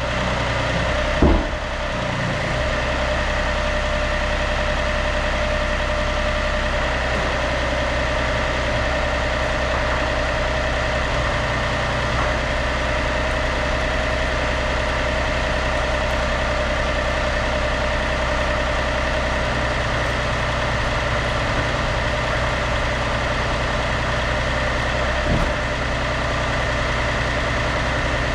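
Yanmar B37-1 mini excavator's diesel engine running steadily at idle, with a short knock about a second in.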